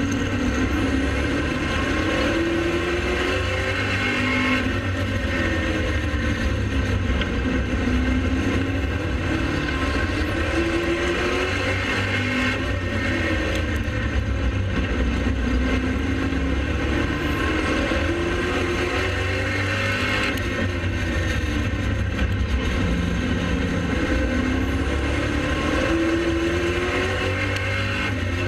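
Pro Late Model race car's V8 engine running at racing speed, its pitch rising and falling every few seconds as the throttle is opened and lifted through the laps.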